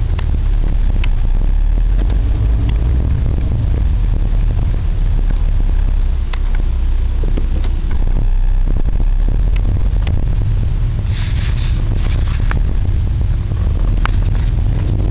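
Car cabin noise while driving: a steady low engine and road rumble, with scattered sharp clicks and knocks and a brief hiss about two-thirds of the way through.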